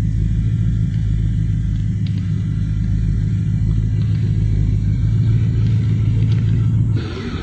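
Steady low rumble of a car cabin while driving: engine and road noise with a constant hum. The sound drops off abruptly about seven seconds in.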